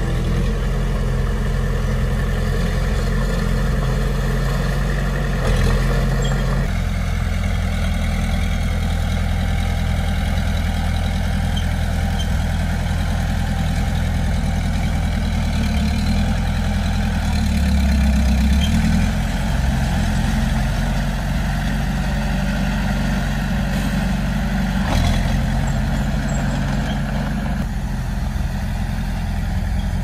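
Mini bulldozer's diesel engine running steadily under work, its note shifting a few times and swelling louder with heavier load about two-thirds of the way through.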